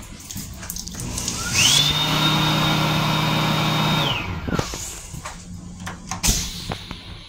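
Small electric blower motor, likely the restroom's hand dryer, spinning up with a rising whine and running steadily for about three seconds with a high whine over a low hum. It then winds down. A sharp click follows about six seconds in.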